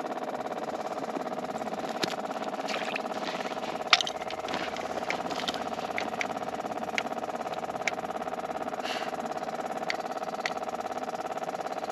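Small engine idling steadily, with scattered sharp clicks and knocks over it, the loudest about four seconds in.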